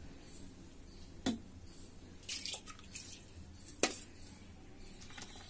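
Steel spoon stirring curd starter into milk in steel bowls. Two sharp clinks of the spoon against the steel, about a second in and near four seconds, with a short soft liquid noise between them.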